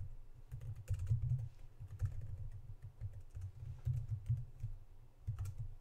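Typing on a computer keyboard in short, irregular bursts of keystrokes.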